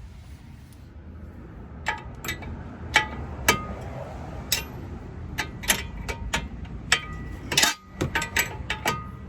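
Metal hand tools clinking against steel steering and suspension parts: irregular sharp clinks, each with a short metallic ring, starting about two seconds in.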